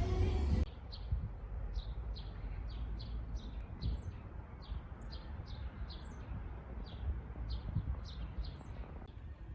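Small birds chirping: a run of short, quick, downward-sliding chirps, two or three a second, over a low steady rumble. Background music cuts off just under a second in.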